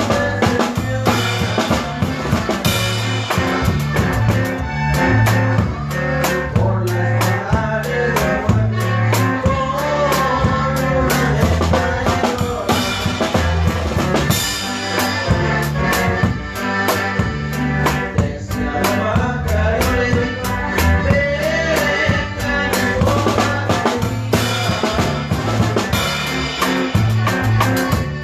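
Live band music: a drum kit keeps a steady beat with snare and bass drum under a walking bass line and melody instruments.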